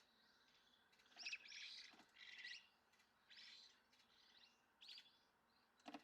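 Small songbirds giving faint, high chirps in short rapid bursts, five or six times.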